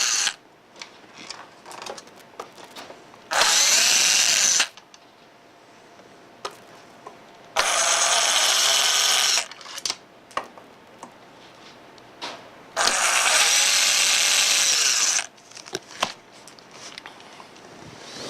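Power drill/driver backing out screws that hold the manifold: three runs of the motor, each lasting one to two and a half seconds, its whine bending in pitch as the screw loosens. Small clicks and taps of handling come in the gaps between.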